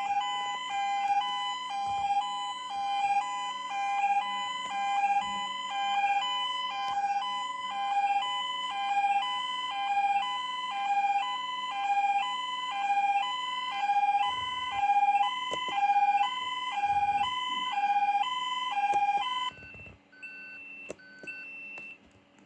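Fire alarm sounder under test, alternating between a high and a low note about once a second, then cutting off abruptly near the end. A few fainter short beeps follow.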